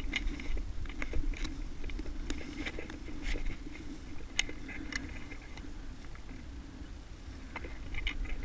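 Irregular crunches and clicks over a low steady rumble: movement and handling noise from an airsoft player on the move, such as footsteps and gear rattling.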